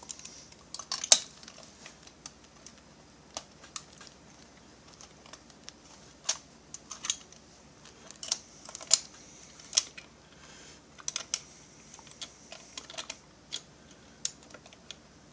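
Scattered light clicks and taps of small metal chainsaw parts being handled and squeezed together by hand, with a sharper click about a second in.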